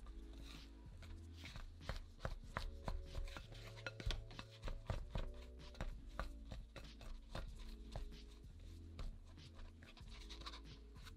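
A spatula cutting through crumbly scone dough, with many quick, irregular clicks and scrapes as it strikes the glass bowl, most dense and loudest in the middle. Soft background music with held low notes runs beneath.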